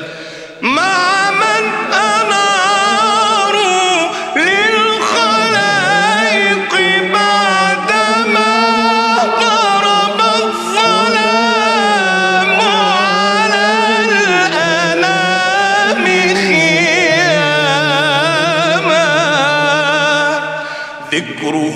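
Unaccompanied Arabic devotional chant (ibtihal): voices start about a second in and sing long, heavily ornamented melismatic lines with a wavering vibrato, without words clearly spoken.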